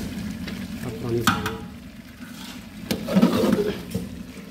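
A long metal spatula stirs and scrapes mutton curry in a large aluminium handi while the meat sizzles in hot oil and masala. A couple of sharp metal clinks against the pot.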